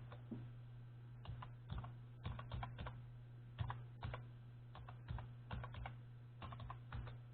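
Light, sharp clicks or taps in small irregular clusters over a steady low hum.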